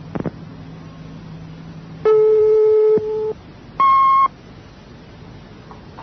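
Two electronic beeps from a telephone answering machine between recorded messages: a lower tone lasting about a second, then a shorter, higher tone about a second later. A steady hiss and low hum from the recording runs underneath.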